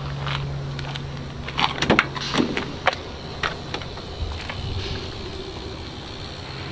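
Cab door of a 1993 Toyota Dyna fire truck being unlatched and swung open: a quick cluster of clicks and knocks from the handle and latch about two seconds in, then a few lighter knocks, over a steady low hum.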